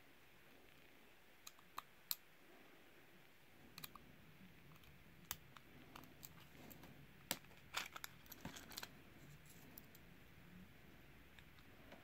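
Faint, scattered metallic clicks and ticks of a lock pick working the pins in the brass cylinder of a Burg Wächter Circle 21/60 four-pin disc padlock under tension, with a quick cluster of clicks around the middle.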